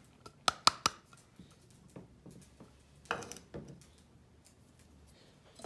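A plastic measuring cup is tapped three times in quick succession against the rim of a mixing bowl, knocking cornstarch out of it. A couple of quieter knocks follow about three seconds in.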